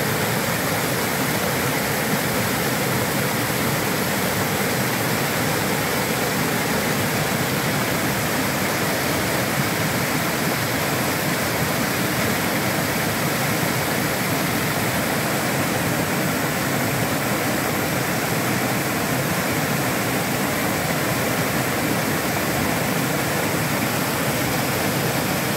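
Waterfall: white water tumbling down steep rock in a steady, unbroken rush.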